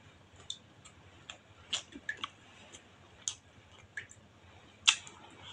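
Close-up eating by hand: scattered sharp, wet mouth and lip clicks while chewing, along with fingers working rice on a plate. About eight clicks, the loudest near the end.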